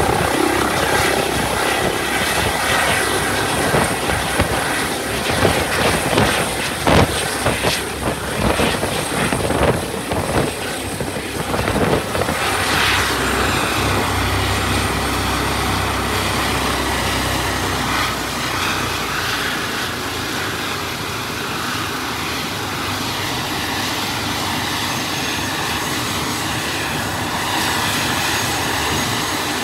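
Airbus H145 helicopter hovering and setting down on a helipad, with rotor downwash buffeting the microphone in irregular gusts. After about twelve seconds this gives way to the steadier sound of its twin turboshaft engines and turning rotor at ground idle.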